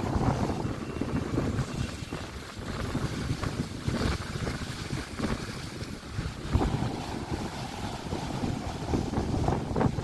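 Sea waves breaking and washing over rocks at the shore, the surf swelling and falling several times, with wind noise on the microphone.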